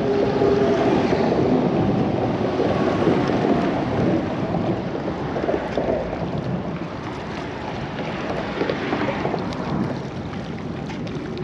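Steady wind noise buffeting the microphone, easing a little partway through.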